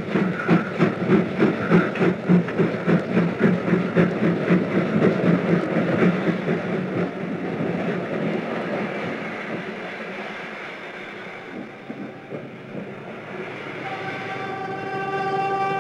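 Steam locomotive pulling away with its train, exhaust beating in quick, even chuffs, then fading into the steady rolling of the coaches over the rails. Near the end a locomotive horn sounds, held for about two seconds.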